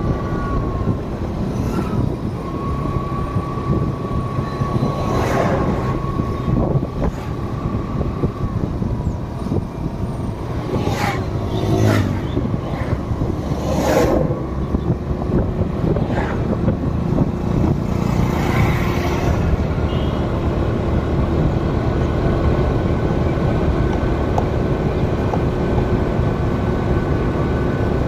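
Road and engine noise of a vehicle driving along a highway: a steady rumble carrying a few steady whining tones, with several brief louder rushes of noise in the middle.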